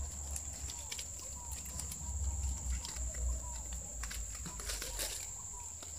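Coconut palm leaflets rustling and crackling as they are handled and woven into a basket, with a low rumble and a steady high whine behind.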